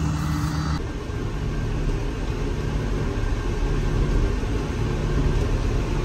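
Tractor engine running steadily, heard from inside the cab as a low rumble. The sound changes abruptly about a second in.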